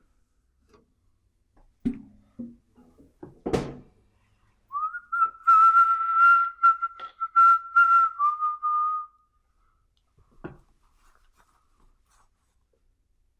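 A person whistling one long held note for about four seconds. It slides up into the note and steps down a little near the end, with light clicks and clatter under it. Before it come a couple of knocks, the loudest about three and a half seconds in, and another knock follows a little after the whistle stops.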